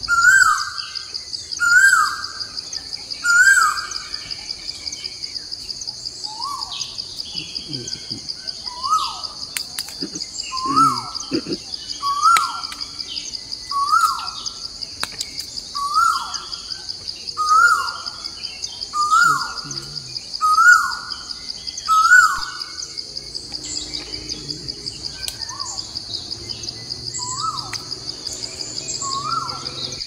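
A bird calling over and over, each call a short falling note, about one every second and a half, with a break in the calls near the end. Under it runs a steady, high-pitched insect drone.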